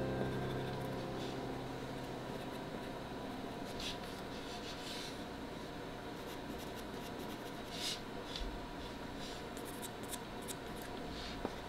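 Soft pastel stick scratching across paper in short, scattered strokes. A music chord dies away at the start.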